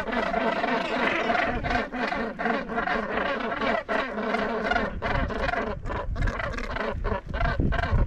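Northern gannet colony calling: many birds giving harsh, rasping calls at once in a continuous chorus, with a low rumble underneath.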